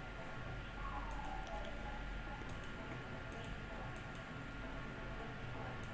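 Quiet background noise: a low hum and a faint steady high whine, with a few faint scattered clicks.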